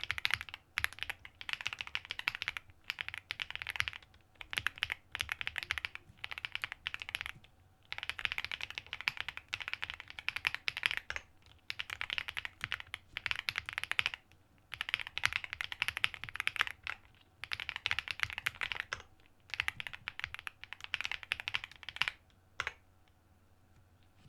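Typing on a WOBKEY Rainy 75 mechanical keyboard with Kailh Cocoa switches: dense runs of keystrokes in bursts of a second or two with short pauses between. The typing stops a little before the end, after one last lone keystroke.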